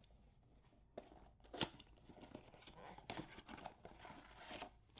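A cardboard blaster box of trading cards being torn open and its wrapped card packs handled: faint tearing and crinkling, with a couple of sharp snaps in the first two seconds and a longer spell of rustling after about three seconds.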